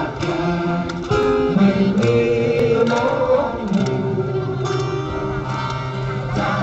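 Acoustic guitar strummed with a voice singing along, amplified through PA loudspeakers.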